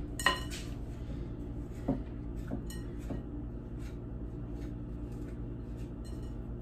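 Metal spoon stirring and scraping thick cookie dough in a glass mixing bowl, creaming the butter by hand. A sharp clink of the spoon against the glass comes right at the start and another about two seconds in, then light scattered taps over a low steady hum.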